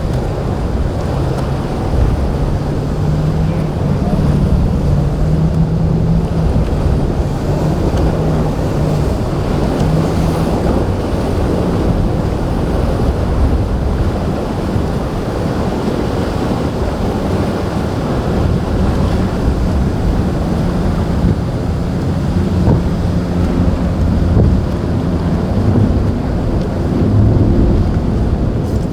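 Boat engines running, their low pitch drifting up and down, under wind buffeting the microphone and the wash of waves.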